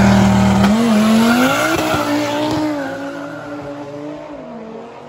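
An Audi sedan and a BMW X3 M Competition accelerating hard away from a drag-race launch. Their engines climb in pitch, drop back at each upshift, and fade steadily as the cars run down the strip.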